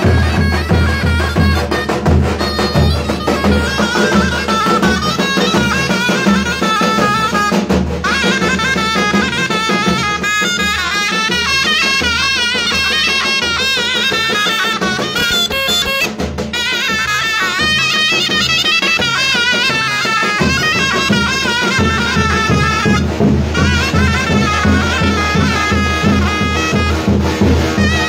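Davul and zurna folk music: two zurnas play a shrill, heavily ornamented melody together over the steady beat of davul drums. The drum beat drops back for a few seconds about two-thirds of the way through, then returns.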